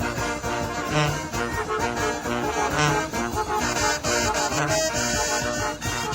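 Mexican banda music: a brass band with trumpets and trombones playing over a steady, regular bass beat.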